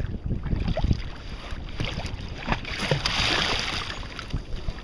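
Small waves lapping and slapping against a kayak's hull, with gusty wind buffeting the microphone; a louder rush of water hiss about three seconds in.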